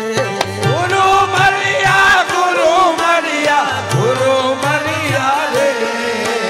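Sufi devotional bhajan in qawwali style: a voice sings long notes that glide up and down over steady instrumental accompaniment.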